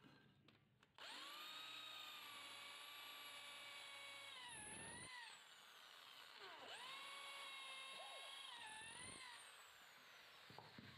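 Corded electric drill boring through a wooden board, run twice: each run starts with a steady motor whine and winds down with a falling pitch, the first about halfway through and the second near the end.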